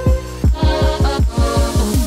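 Background electronic music: deep kick-drum strokes come faster and faster in a building roll.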